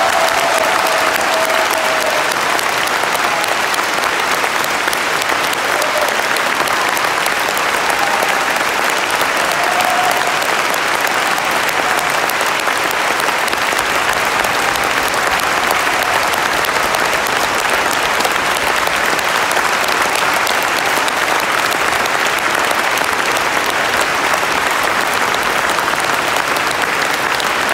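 Concert audience applauding steadily, a dense even clapping that holds at one level throughout.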